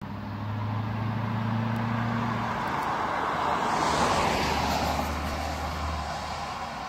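A car drives past close by, its tyre and engine noise swelling to a peak about four seconds in and then fading, over a low steady engine hum.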